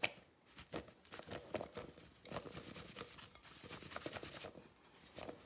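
Cornstarch-coated boiled potato strips tossed in a glass bowl: a quick, irregular run of soft knocks and shuffling as the strips tumble, with a sharp click right at the start.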